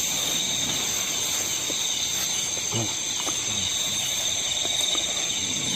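Steady, high-pitched drone of a forest insect chorus, with a few faint low sounds near the middle.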